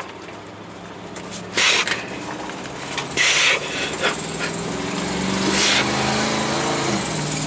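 A motor or engine running steadily and slowly getting louder, with three short bursts of hissing.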